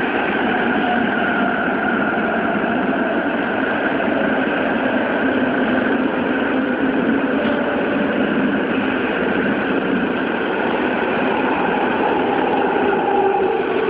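Tokyo Metro 9000 series subway car running in a tunnel, heard from inside: steady rumble of wheels on rail mixed with the tones of its Hitachi GTO-thyristor VVVF inverter and traction motors. Near the end the tones shift as the train comes alongside the platform.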